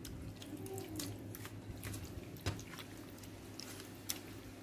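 A hand squishing and rubbing a chilli-and-salt marinade into raw fish pieces in a steel bowl: faint wet squelching, with a few small sharp clicks, the loudest about two and a half seconds in.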